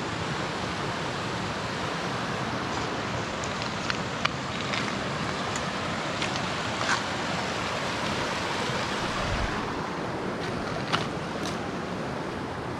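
Steady rush of creek water pouring over rocks into a pool, with a few light clicks and taps on top.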